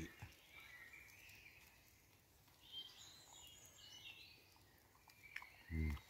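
A songbird singing faintly, a run of high warbling phrases. Near the end a man gives a short low closed-mouth 'mm' while eating.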